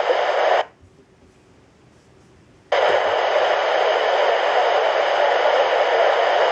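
Handheld airband scanner hissing with radio static from an open channel. About half a second in the squelch closes and it goes almost quiet for two seconds, then the hiss comes back abruptly and holds steady.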